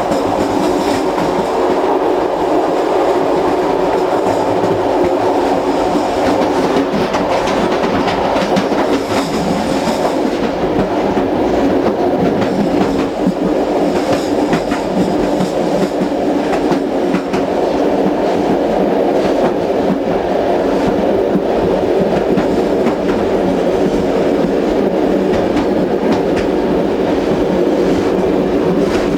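Running noise of CP Corail passenger coaches at speed, heard from the gangway between carriages: a steady, loud rumble of wheels and bogies on the track, with scattered clicks from the rails.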